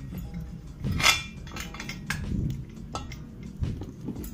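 Steel rod being pushed through the steel frame of a motorcycle front wheel clamp, making several clinks and clanks of metal on metal, the loudest about a second in.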